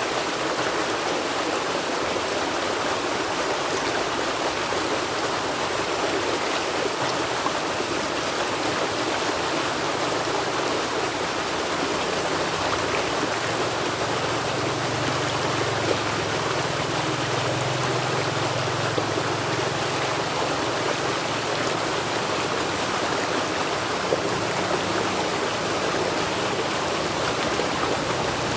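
River water flowing steadily, an even rushing. A low hum joins about halfway through and holds on.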